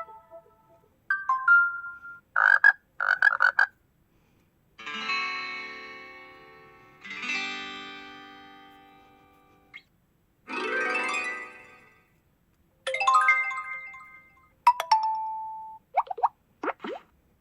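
A run of short electronic phone tones from a Poco X5 Pro smartphone: about nine chimes and jingles played one after another with brief silences between them. Two chords near the middle ring out and fade over a couple of seconds each, and one tone is a noisy swell.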